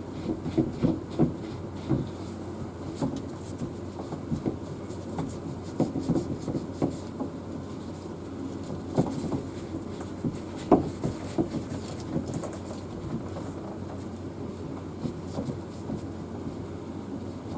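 Irregular small knocks, taps and rubbing as pipe fittings and tools are handled, likely the old paint being wiped off the pipe, over a steady low hum. The loudest knock comes a little past the middle.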